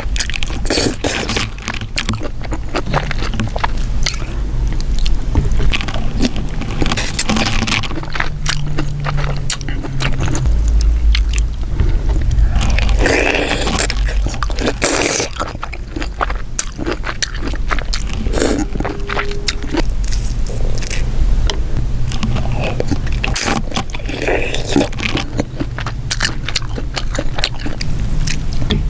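Close-miked eating of shellfish, green-lip mussels and shrimp: chewing and biting with many sharp clicks and short wet bursts, and shells scraping.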